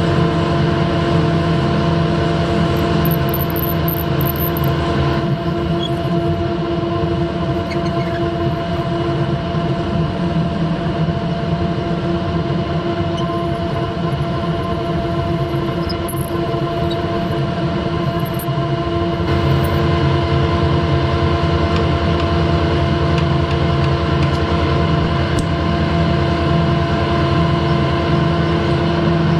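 Harrison lathe running steadily under power, a steady hum with several held tones, while a fluted machine reamer is fed from the tailstock into the bore of a spinning steel bush.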